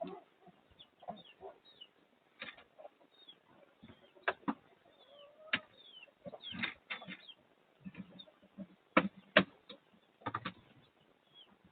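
Chickens clucking in short scattered calls, with some small high falling peeps and a few sharp knocks in between.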